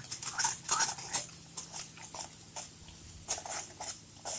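A spoon stirring powdered spices into thick, hot onion-tomato masala in a kadhai: irregular wet squelches, clicks and scrapes of the spoon against the pan.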